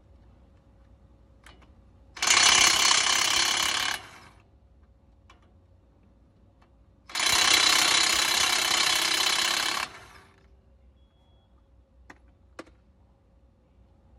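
Impact wrench hammering in two bursts, about two and about three seconds long, a few seconds apart, breaking loose the large brake caliper mounting bolts. A few light metal ticks and clinks come between and after the bursts.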